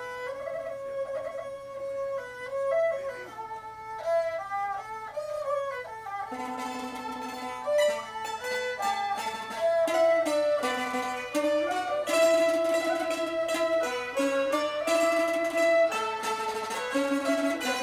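Traditional Cambodian ensemble music: bowed tro fiddles play a sliding melody, joined about six seconds in by the plucked takhe crocodile zither and the struck khim hammered dulcimer.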